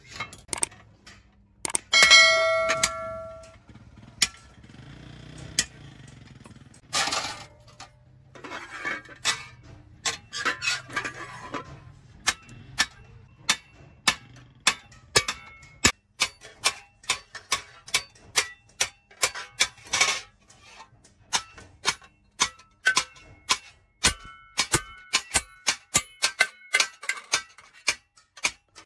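Hand hammer striking a sheet-iron hoe blade and a chisel on a small iron anvil: one loud ringing clang about two seconds in, then a long run of steady, evenly spaced taps, about two a second.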